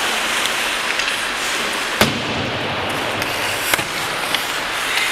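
Ice hockey play: a steady scraping hiss of skates with sharp knocks of puck and sticks, the loudest about two seconds in, a smaller one near four seconds and another at the very end.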